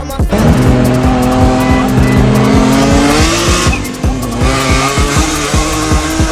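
Nissan 350Z's VQ35HR V6 held at high revs while drifting, with the tyres squealing; the engine pitch climbs slowly for about three seconds, drops off briefly a little after three and a half seconds in, then comes back on. A hip-hop beat plays over it.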